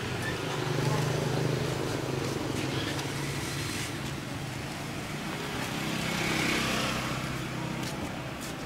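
Street traffic with motor scooters passing close by: a steady engine hum that swells twice, about a second in and again near six and a half seconds.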